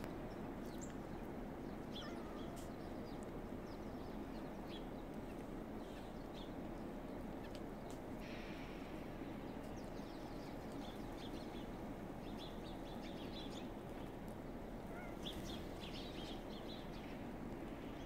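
Small songbirds giving scattered short, high chirps over a steady low outdoor background rumble.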